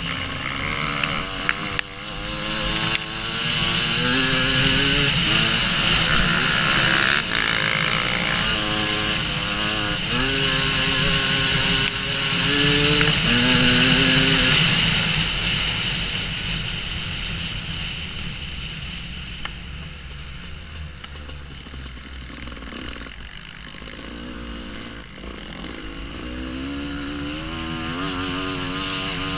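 Husqvarna WR250 two-stroke enduro motorcycle engine revving hard, its pitch climbing and dropping back in repeated steps as it pulls through the gears. It eases off and runs quieter about halfway through, then builds again near the end.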